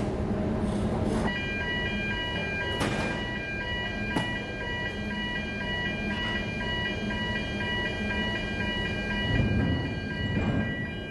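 Electronic warning alarm beeping in a steady on-off pulse, several fixed pitches at once, starting about a second in, over a steady low machinery hum. Two sharp knocks are heard during the alarm.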